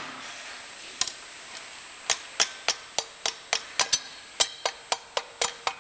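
Light, sharp taps on a Harley-Davidson Evolution cylinder as it is worked down over the piston rings held in a ring compressor. There is one tap at the start and another about a second in, then a steady run of about three to four taps a second from about two seconds in.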